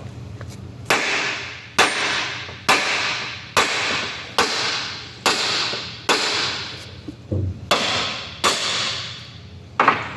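Hammer blows, about one a second and ten in all, each sharp strike trailing off in a short fading rattle, struck to force a stuck part of a 2-inch Safeway valve to turn.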